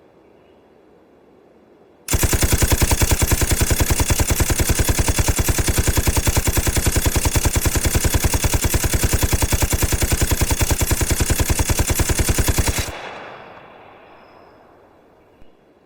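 Machine-gun fire: one long unbroken burst of rapid, evenly spaced shots lasting about eleven seconds, then stopping and dying away in echo.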